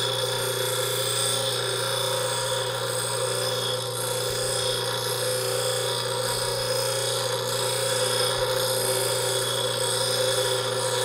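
Bench grinder running at a steady speed while a steel screwdriver shaft is held lightly against its abrasive wheel, grinding a notch into it: a constant motor hum under an even grinding hiss.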